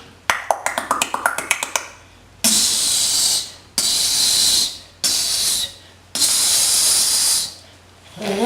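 A beatboxer's mouth-made sound effect: a quick run of sharp clicks, about ten a second, for under two seconds. Then come four long hissing blasts with short gaps between them, the last one the longest.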